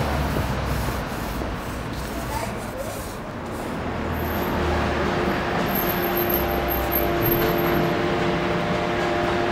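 Street traffic noise with a low rumble, and a vehicle engine's steady hum coming in about four seconds in.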